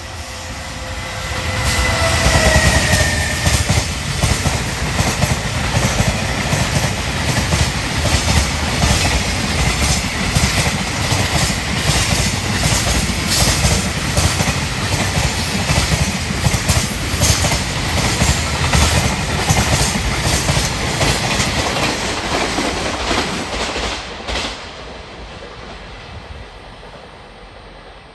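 Freight train passing at high speed: the locomotive's tone falls in pitch as it goes by, then a long string of wagons clatters over the rail joints with steady rhythmic clicks. The noise cuts off suddenly near the end as the last wagon passes.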